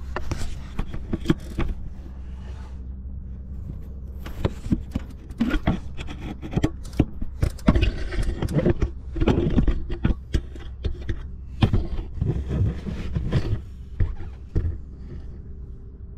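Irregular scraping, rubbing and knocking of a phone camera brushing against engine-bay parts as it is moved around the belt pulleys, over a steady low hum.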